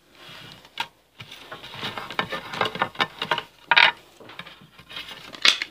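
Pokémon trading cards being handled and stacked by hand: irregular light clicks and card rustles, with a sharp click about a second in and louder rustles near the middle and near the end.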